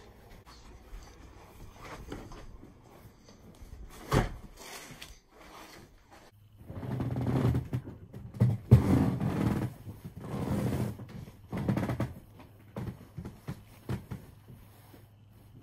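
Close handling noise: clothing rubbing and brushing right against the camera's microphone in several loud rustling surges, after a single thump about four seconds in.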